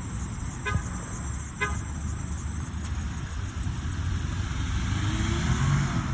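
Two short horn toots, about a second apart, over a steady rumble of street traffic.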